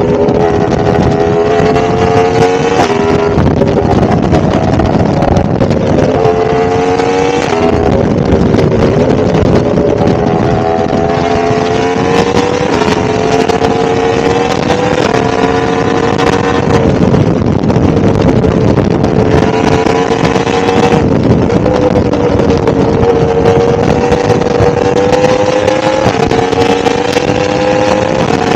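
1000cc motorcycle engine running under way, its pitch climbing gently and dropping back at each gear change, several times over. Wind rushes over the microphone throughout.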